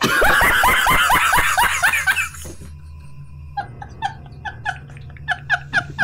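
A man laughing hard in rapid bursts for about two and a half seconds, an edited-in meme sound clip. It is followed by quieter short repeated chirps, about three or four a second, over a low hum.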